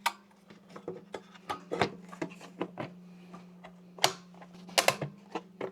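Irregular clicks and knocks of plastic headlight parts and tools being handled during reassembly, with a cluster of louder knocks about four seconds in and again near the end, over a steady low hum.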